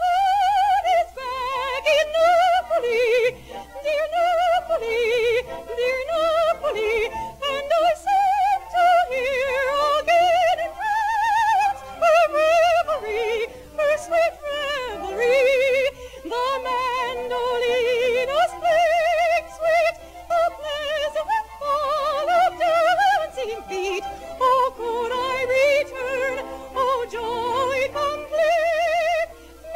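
Music: a soprano singing in operatic style with a strong, wide vibrato, the melody moving up and down in a high range.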